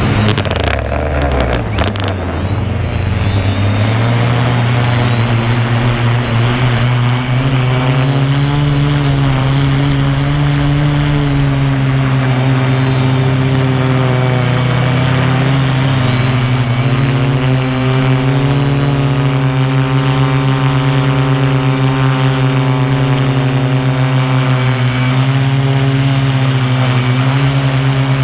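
Quadcopter drone's motors and propellers buzzing loudly, heard from its own onboard camera, as the drone descends. The pitch dips and wobbles in the first few seconds, then holds steady.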